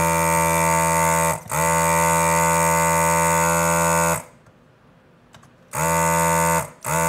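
HAKKO FR-301 desoldering gun's built-in vacuum pump buzzing as its trigger is pulled, sucking molten solder from a circuit board's pins. It runs steadily for about four seconds with one brief break, then comes on in two short bursts near the end.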